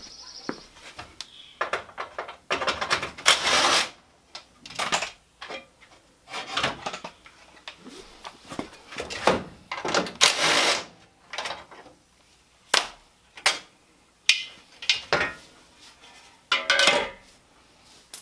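Hand tools and metal car parts clanking and clattering in irregular knocks, with a few longer scraping rasps of about a second each, as bolted front-end parts of a car are worked loose.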